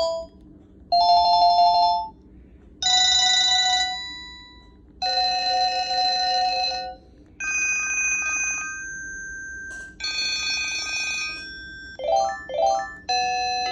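Panasonic KX-TG3721 cordless phone handset playing a run of its built-in electronic ringtones, each a different melody and each stopping after a second or two as the next one starts, about seven in all.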